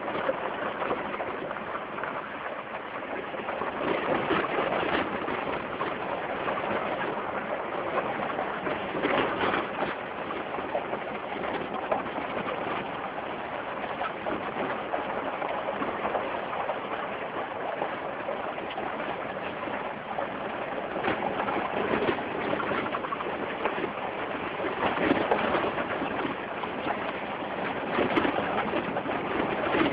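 Jeep Wrangler driving off-road: a continuous rough noise of engine, tyres and wind that swells and eases every few seconds.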